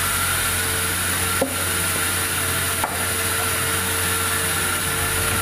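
Sawmill saw cutting through wood: steady machine noise with a constant high whine, and two brief knocks about a second and a half and three seconds in.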